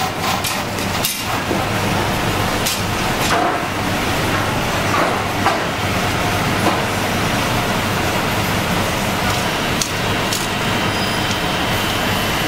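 Steady machine hum and rumble as a steel rack of taralli trays is lowered on an electric chain hoist into a boiling-water tank. A few sharp metallic clicks and knocks come from the rack and chain.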